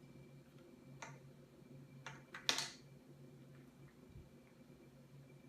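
A few light clicks and taps of plastic Play-Doh playset pieces and molds being handled, the loudest about two and a half seconds in, over a faint steady hum.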